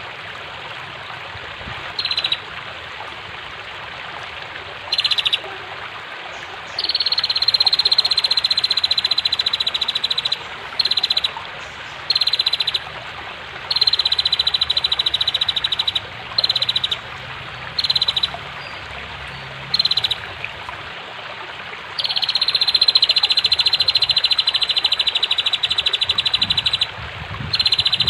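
Female prenjak (prinia) calling in rapid ticking trills over steadily rushing flowing water. The trills come as short bursts of about half a second, interspersed with three longer runs of two to five seconds.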